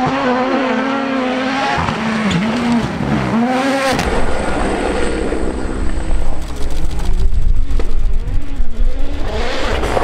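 Rally1 rally cars on a gravel stage, each with a turbocharged 1.6-litre four-cylinder engine. First a Ford Puma's engine rises and falls through gear changes. After a cut about four seconds in, a Toyota GR Yaris comes on hard at full throttle, loudest near the end, with gravel spraying from its tyres.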